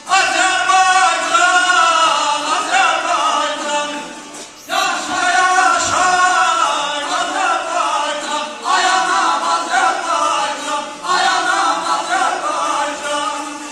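Live amplified male singing in loud, drawn-out phrases with wavering pitch, breaking off briefly about 4.5, 8.5 and 11 seconds in, over an accompaniment of plucked long-necked lutes.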